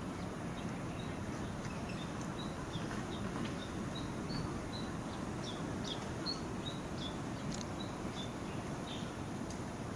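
Small birds chirping: short, high chirps repeating about once or twice a second over a steady low background noise.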